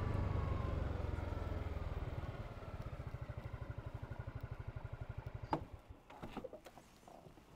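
Honda Forza 250 scooter's single-cylinder engine settling as the scooter comes to a stop, with a falling whine, then idling in even pulses until it cuts off with a click about five and a half seconds in. A few small clicks follow.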